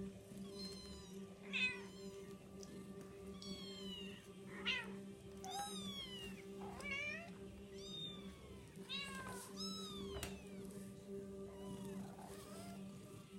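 Neva Masquerade kittens, about two and a half weeks old, mewing over and over in thin, high-pitched calls that drop in pitch, some calls overlapping.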